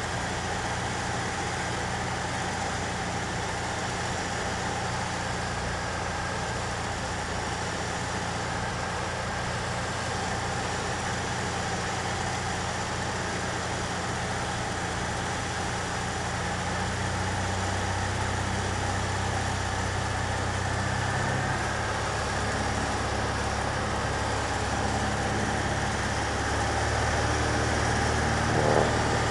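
Single-engine light aircraft's piston engine and propeller droning steadily as heard inside the cockpit, with wind rush. The engine note shifts and grows slightly louder a little past halfway, and a short knock sounds near the end.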